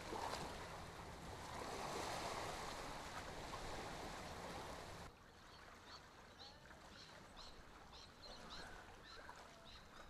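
Harbour water lapping and sloshing, as a rushing noise that swells and ebbs. About five seconds in it cuts to a quieter background with faint, repeated high chirping.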